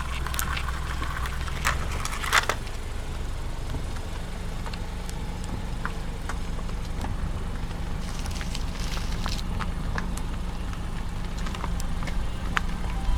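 A steady low engine-like drone with scattered small clicks and crackles over it.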